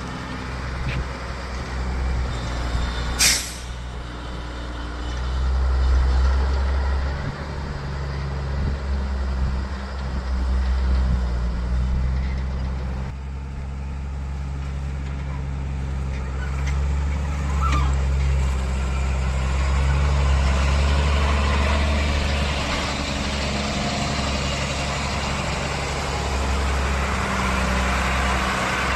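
Heavy diesel engines of a JCB backhoe loader and a Tata tipper truck running, swelling louder several times as they work under load. A short, sharp air-brake hiss about three seconds in.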